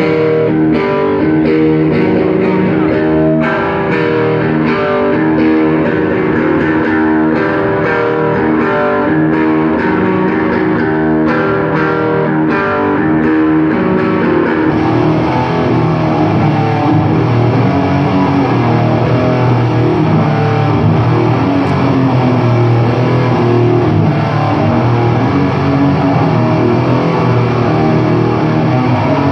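Live heavy metal played on distorted electric guitar: a slow riff of separately picked notes, with the sound filling out into a denser, heavier full-band wall about halfway through.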